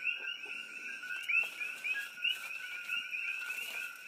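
A chorus of coqui frogs calling at night: many overlapping two-note "co-qui" calls, each ending in a short rising chirp, in a dense continuous din.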